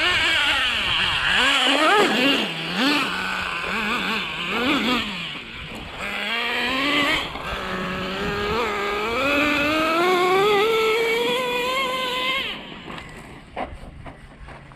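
Traxxas Slash RC truck's motor whining as it is driven, its pitch jumping up and down with quick throttle blips, then climbing steadily through a long full-throttle run. The whine cuts off about two seconds before the end, leaving quieter noise and a few clicks.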